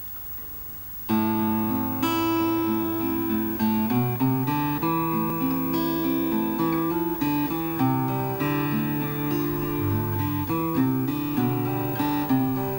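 Acoustic guitar playing an instrumental passage of picked notes and chords, starting about a second in.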